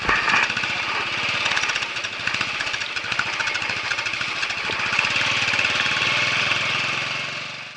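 Motorcycle engine running steadily as the bike rides along, with a rapid even pulse, fading out near the end.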